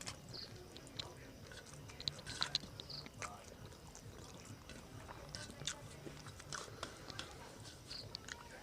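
A person chewing and biting a meal of rice and chicken curry, with scattered small clicks and mouth smacks, busiest about two to three seconds in.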